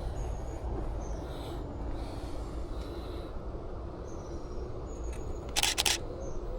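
Outdoor ambience of a steady low rumble with short high bird chirps now and then, and a DSLR shutter firing once near the end as a sharp double click.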